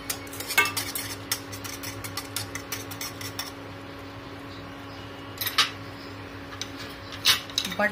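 A spatula and then a metal whisk clinking and scraping against a steel saucepan while stirring thick, simmering chocolate syrup, with a quick run of clicks over the first three seconds and a few separate knocks later. A steady low hum runs underneath.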